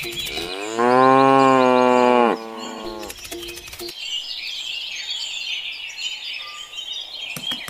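A cow moos once, one long call of nearly two seconds that starts about half a second in, its pitch rising at the start and dropping at the end. Birds chirp through the rest.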